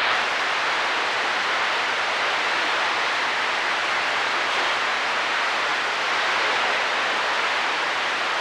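CB radio receiver on channel 28 giving a steady hiss of static, with no station coming through.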